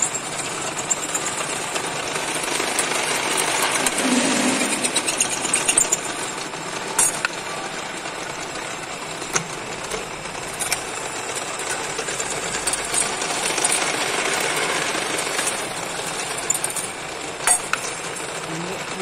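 Drill press running with its bit cutting through a thin metal disc: a steady, dense grinding noise, with a few sharp clicks along the way.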